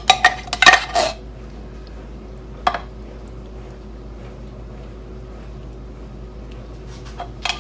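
A metal spoon clinking and scraping against the tomato-soup can and the metal pan as the soup is scooped out: a quick run of clinks in the first second, one more about three seconds in, and a few more at the very end, with only a steady low hum in between.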